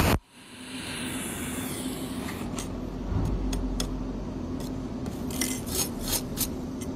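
Cold welding machine firing a weld pulse, a single sharp crack right at the start, as a spot is laid on the sheet-metal seam. After it a steady low hum continues, with a scatter of small metallic ticks and scrapes from about two and a half seconds in.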